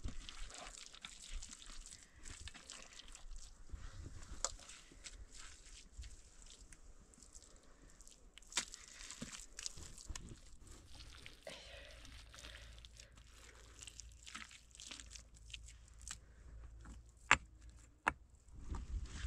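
Scattered footsteps and crunching on rough ground, with several sharp knocks; the loudest comes near the end.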